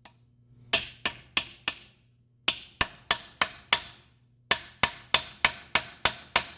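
Hammer tapping a steel drift, driving a new shift-detent dust cap into the gearbox case to its set depth. Sharp, ringing strikes about three a second, in three runs of four, five and seven blows with short pauses between.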